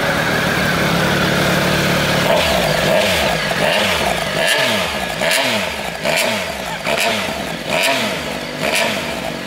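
Triumph Speed Triple RS's 1050 cc inline-three engine revving through its Arrow silencers with the bike standing in neutral. It is held at raised revs for about two seconds, then blipped over and over, about one rise and fall of revs every three-quarters of a second.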